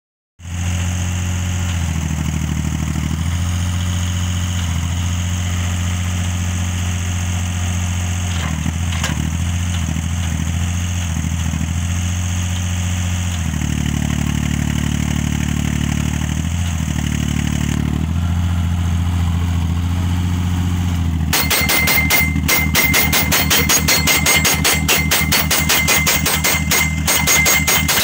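Crawler-mounted guardrail post driver: its engine runs steadily, the note shifting now and then, and after about twenty seconds its hammer starts pounding the steel guardrail post into the ground in rapid, even blows.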